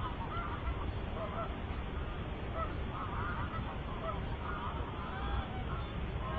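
Geese honking: a flock calling over and over, short calls overlapping, over a steady low rumble.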